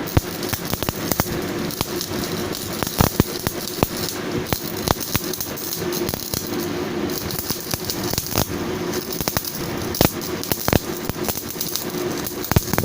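Stick arc welding: the electrode arc crackling and sizzling with dense, irregular pops and sharp snaps, as a steel socket is welded onto a cut-down lug wrench. A steady hum runs underneath.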